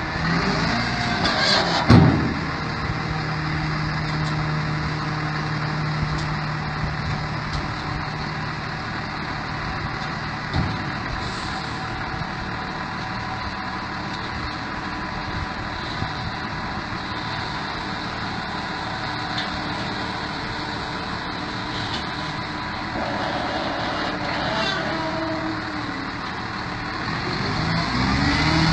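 Heavy machinery engine running steadily, with a sharp knock about two seconds in.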